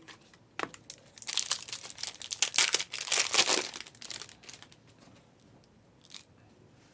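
Plastic trading-card pack wrapper crinkling in the hands, a dense crackling that lasts about three seconds, with a couple of single clicks before and after.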